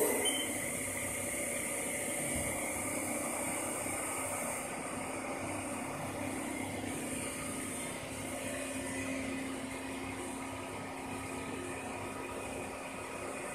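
Haas VF4 CNC vertical machining center running a milling program: the spindle turning and flood coolant spraying give a steady mechanical whir with a high hiss.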